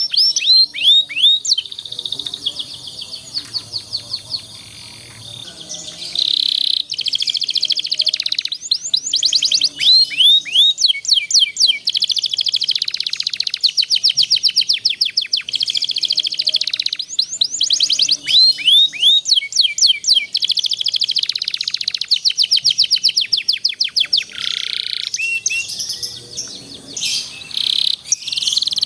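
Domestic canary singing long rolling trills of rapid, evenly repeated chirping notes, with a quieter stretch a few seconds in.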